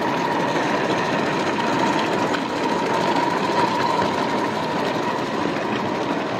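Small live-steam vertical-boiler model locomotive running steadily, with an even mechanical chuffing and hiss and a steady high note underneath.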